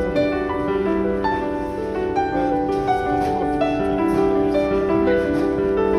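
Background music led by a gently played piano, with notes changing steadily.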